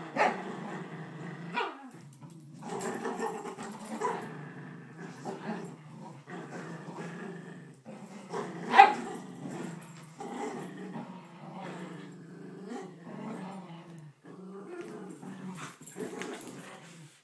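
Two poodles growling at each other in uneven stretches during a tug-of-war over a blanket, with one sharp, louder outburst about nine seconds in.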